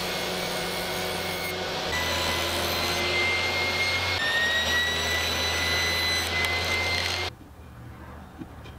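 Table saw running and cutting a thin plywood panel to size, a steady noise with a faint whine. It cuts off abruptly near the end.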